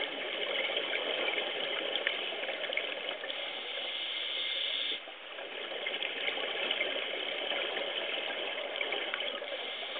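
Underwater water noise picked up by a camera in a dive housing: a steady rushing, bubbling sound with scattered faint clicks, dipping briefly about halfway through.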